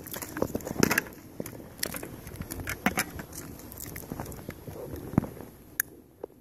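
Handling noise from a smashed Shoei motorcycle helmet being pulled at and turned over on paving stones: scattered knocks, scrapes and crackling of broken shell and liner, with one sharp click near the end.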